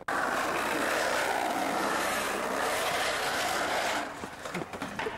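Skateboard wheels rolling fast over brick paving: a loud, rough rolling noise that starts suddenly and drops in level about four seconds in.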